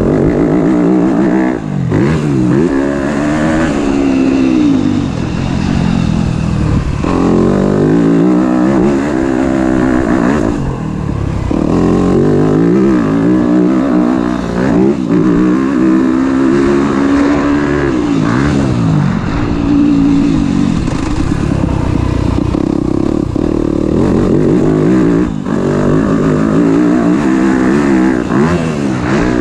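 2021 Yamaha YZ250F's four-stroke single-cylinder engine heard from on board under hard riding, revving up and dropping back every few seconds as the rider works the throttle and gears, with brief dips where the throttle is shut.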